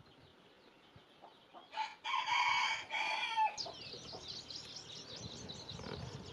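A rooster crowing once, a single drawn-out call of about a second and a half that drops in pitch at the end. Small birds chirp rapidly after it.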